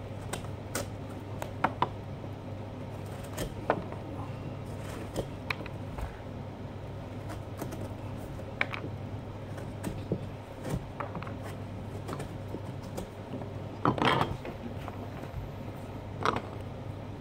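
Small carving knife cutting and scraping into pumpkin rind and flesh: scattered short clicks and scrapes, with a louder cluster near the end, over a steady low hum.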